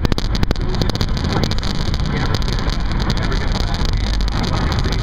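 Steady road and wind noise of a car driving at highway speed, heard from inside the cabin, with a deep tyre rumble and a few light clicks in the first half second.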